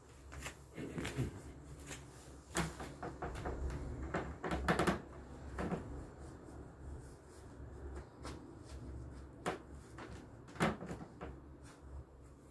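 Handling and movement noise: irregular knocks and clicks with some rustling, with a cluster of louder knocks a little before halfway and one sharp knock near the end.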